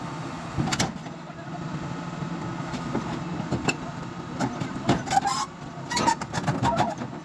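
Caterpillar 325 tracked excavator's diesel engine running steadily as the machine crawls down off a trailer, with its steel tracks clanking and knocking several times.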